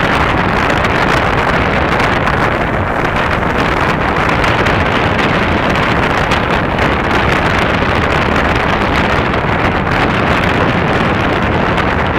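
Steady, loud rushing noise of wind buffeting the microphone on an open beach, with no fireworks bangs.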